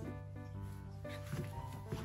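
Background music with sustained notes, with two soft knocks in the second half.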